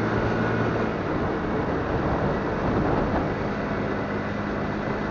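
Motorcycle engine running while riding at low speed, a steady hum with road and air noise; the engine note shifts a little about a second in and again near three seconds in.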